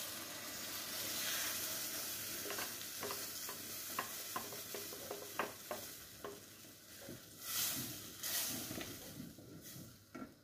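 Puréed cassava poured into a steel pot of hot fried bacon and chouriço, sizzling as it meets the fat, while a spoon stirs it with small clicks against the pot. Two louder swishing surges come near the end.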